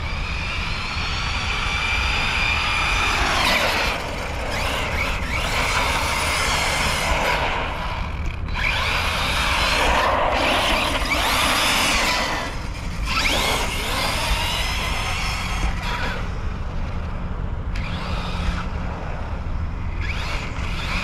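Arrma Kraton 6S BLX 1/8-scale RC monster truck driving on asphalt. Its brushless motor whines, rising and falling in pitch several times as it speeds up and slows, over a hiss of tyre noise.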